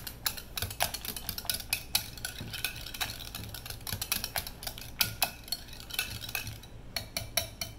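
A metal wire whisk stirring cooked pudding in a glass mixing bowl, its wires clicking rapidly and unevenly against the glass.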